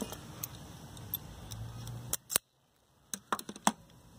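Sharp clicks and snips of hand tools on electrical wire, about six in the second half, with the sound cutting out briefly among them.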